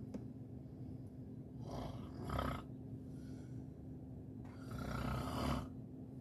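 Snoring: two long, noisy snoring breaths about three seconds apart, over a steady low hum.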